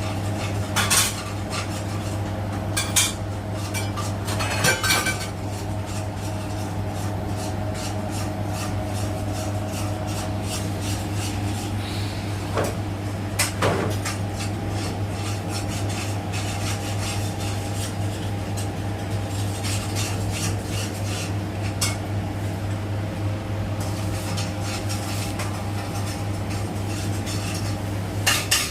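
Siemens iQ700 washing machine running with a steady hum, with scattered sharp metallic clinks and knocks, a handful of them louder. This is the machine noise the owner still complains of after the drum replacement, which the technician holds to be normal at 1200 rpm.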